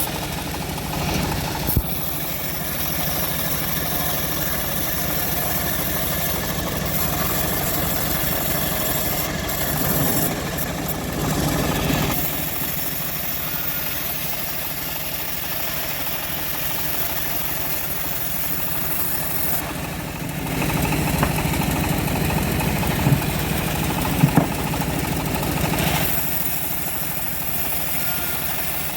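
Homemade bandsaw mill running steadily as it saws a teak log, its engine droning under the blade noise. It grows louder for a few seconds near the end, with a couple of sharp knocks.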